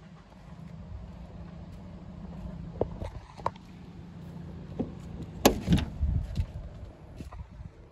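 The Peugeot 404 Cabriolet's door being handled: several sharp latch clicks, then a louder clunk and knocks about five and a half seconds in as the door is opened, over a steady low hum.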